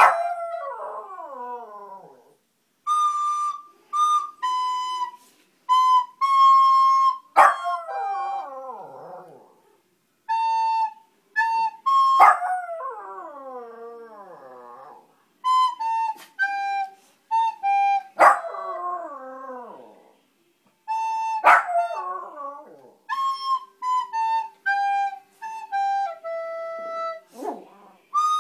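A Volpino Italiano howling along to an instrument. Short phrases of steady held notes alternate with the dog's long howls, each sliding down in pitch, about six times over.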